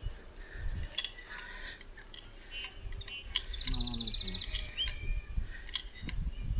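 Birds chirping, with one rapid trill about halfway through and a few faint clicks scattered through.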